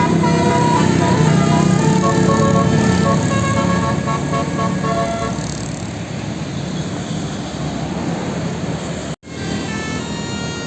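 A bus's Basuri multi-tone telolet horn playing a quick tune of stepped notes for about five seconds over engine and traffic noise. The horn then stops and the engine and road noise carry on, and horn notes start again near the end.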